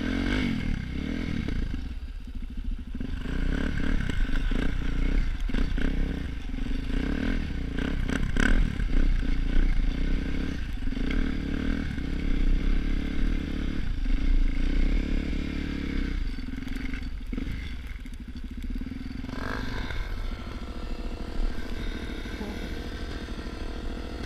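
Motorcycle engine running steadily while riding, with irregular knocks and clattering throughout.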